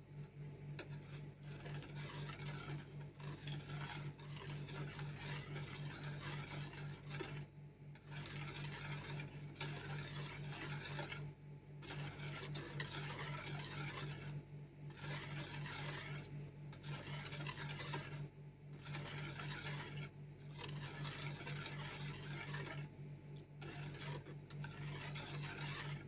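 A metal utensil stirring a milky coconut-milk and sugar mixture in a plastic mixing bowl. The continuous scraping swish is broken by short pauses every few seconds.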